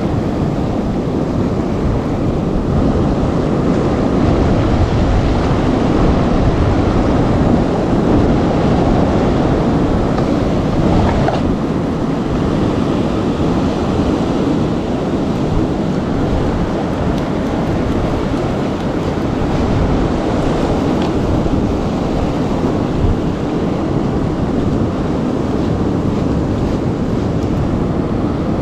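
Steady rush of surf breaking and washing over the rocks, with wind rumbling on the microphone.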